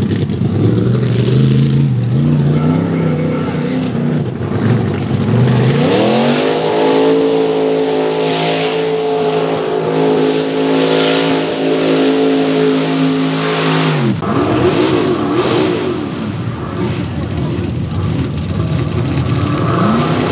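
Mud racing truck's engine revving unevenly at low speed, then climbing to full throttle about five seconds in and held there for about eight seconds as the truck runs through the mud pit, before cutting off abruptly. Near the end, another truck's engine revs up.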